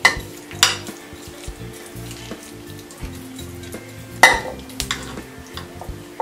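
Metal spoon scraping and clinking against a ceramic baking dish while scooping out thick baked buffalo chicken dip, with a few sharp clinks, the loudest about four seconds in. Soft background music underneath.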